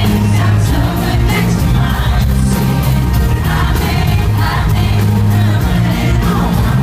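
Live band playing through a concert PA: electric guitars, bass and drums under a male lead vocal.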